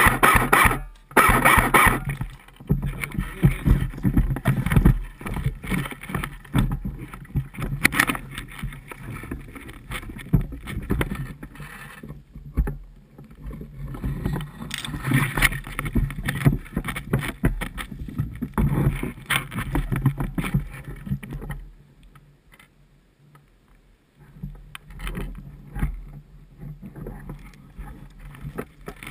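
Footsteps crunching through dry forest undergrowth, with branches and needles brushing past and gear rubbing close to a body-worn action camera's microphone, in irregular knocks and rustles. The first two seconds hold a louder buzzing rattle, and the noise drops away briefly about three quarters of the way through.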